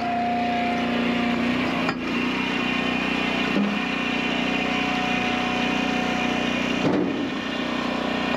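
Engine of an Eastonmade Ultra hydraulic firewood splitter running steadily at working speed with a held whine, and a couple of brief knocks, about two seconds in and near the end.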